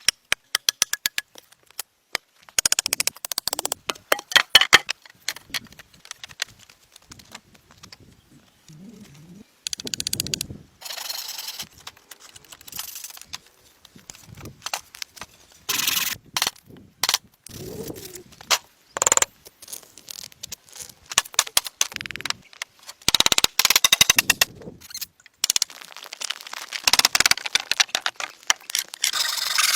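Rapid, irregular runs of sharp knocks and taps from hand tools working wood, broken by a few short stretches of scraping noise.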